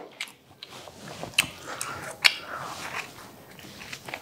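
Close-miked eating sounds of soft malai boti pizza being chewed: wet mouth and chewing noises, with two sharp clicks, one about a third of the way in and the louder one just past halfway.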